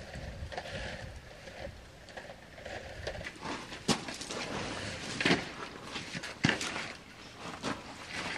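Boots crunching on gravel and a length of black corrugated plastic drain pipe being carried and handled, with three sharp knocks and clicks in the middle as the pipe is brought to the catch basin.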